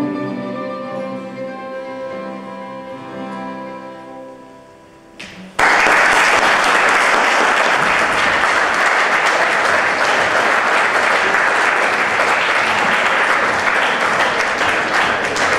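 Last notes of the song on a plucked mandolin ring out and fade away. About five and a half seconds in, loud audience applause starts abruptly and goes on steadily.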